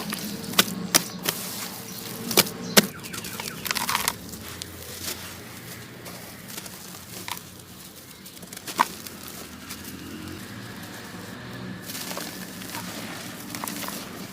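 Lumps of dry sand-cement crumbling and cracking into water, with a run of sharp cracks in the first three seconds and another about nine seconds in.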